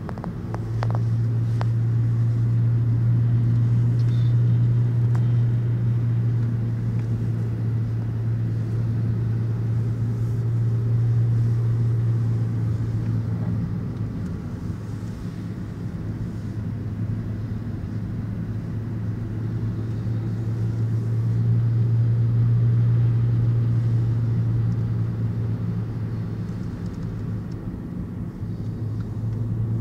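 Car driving noise heard inside the cabin: a steady low engine and tyre drone that swells and eases every several seconds.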